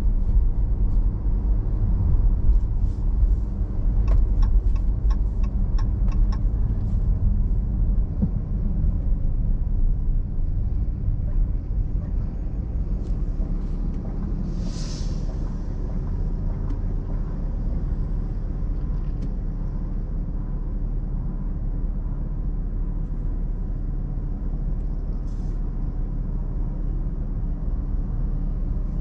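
Car's engine and road rumble heard from inside the cabin as it drives slowly, then quietens as the car stops at a light. A run of light clicks comes in the first few seconds, and about halfway through there is a short hiss from the air brakes of a shuttle bus crossing in front.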